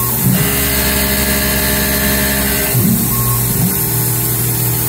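CNC mill's end mill cutting an aluminium plate: a steady machining whine whose tone changes about a third of a second in and changes back near three seconds in, as the cutter's path and load change.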